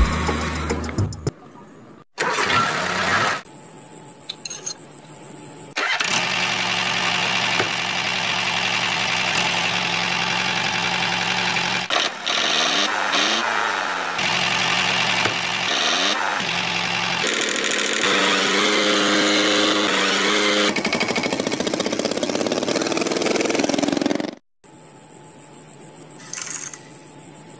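Engine sound of a homemade mini toy tractor running steadily, its pitch bending up and down for a few seconds in the middle. It breaks off abruptly a few times, twice going almost silent for a moment.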